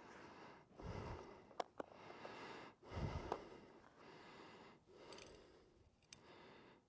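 A rider breathing heavily near the microphone: two short, faint puffs of breath about two seconds apart, with a couple of light clicks between them.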